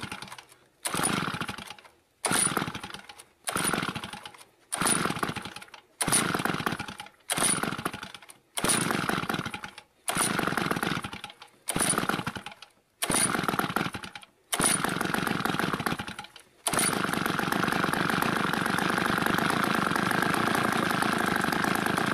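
Old two-stroke chainsaw engine running on wood gas from a gasifier, being pull-started over and over: about a dozen short bursts, one every second and a bit, each fading quickly. About 17 seconds in it catches and runs steadily.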